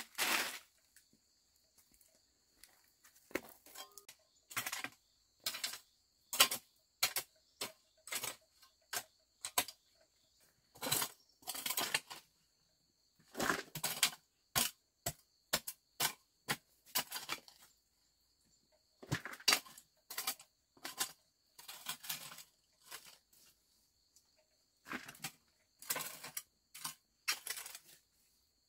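Irregular short crunching and rustling sounds that come in clusters with pauses between them. Behind them is a steady high-pitched drone of insects.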